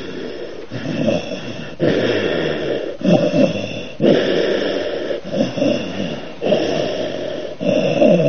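A man doing qigong throat (laryngeal) breathing without voicing the 'he' sound: the throat opens and closes to drive the breath, giving audible breaths through the throat at about one a second.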